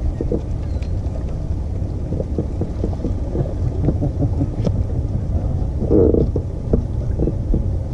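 Wind rumbling on the microphone over a boat deck, with water lapping and knocking against the hull, and a brief louder noise about six seconds in.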